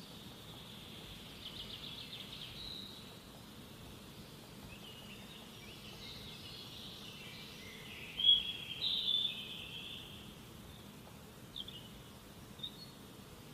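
Birds chirping and calling over a steady, high-pitched insect drone, with the loudest calls about eight to nine seconds in.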